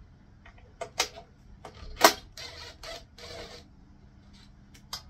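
A cordless drill-driver backing screws out of a winch control box cover in short bursts, with clicks of metal on metal; the loudest is a sharp click about two seconds in.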